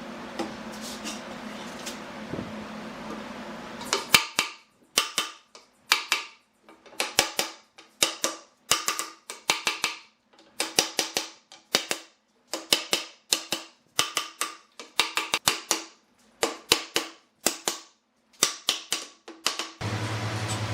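A steady background hum, then from about four seconds in, quick clusters of sharp knocks on wood, three to six strikes per cluster with short silent gaps between. A low, steady machine hum starts just before the end.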